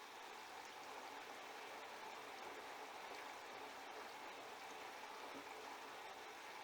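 Steady sound of water inside a Siemens iQ700 front-loading washing machine during its delicate/silk wash cycle with a duvet load.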